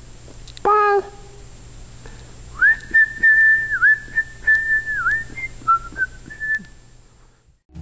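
A person whistling a short tune for about four seconds: one clear note line that dips briefly in pitch several times and ends on a few lower notes. A brief voice sound comes about a second in.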